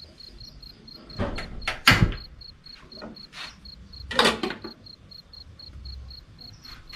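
A cricket chirping steadily, about three high chirps a second, under a few sharp knocks and clatters of kitchen things, the loudest about two seconds in.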